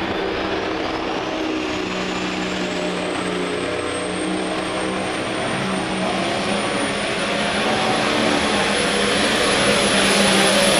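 Pro stock pulling tractor's turbocharged diesel engine running hard under load as it pulls the sled, with a high whine that climbs over the first few seconds and then holds steady, getting louder toward the end.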